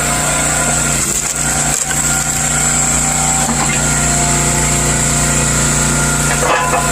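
Small gasoline engine of a hydraulic log splitter running steadily at a constant speed, with a few brief changes in the sound about a second in, near two seconds and near the end.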